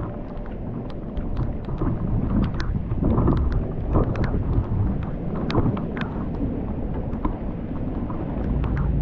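Thunder rumbling low and long in a strong thunderstorm, swelling a couple of seconds in and building again near the end, with scattered sharp ticks of raindrops.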